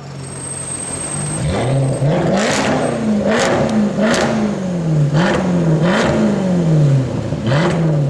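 Mercedes-Benz C63 AMG's 6.2-litre V8 exhaust idling for about a second and a half, then revved sharply about seven times, each rev rising quickly and falling back.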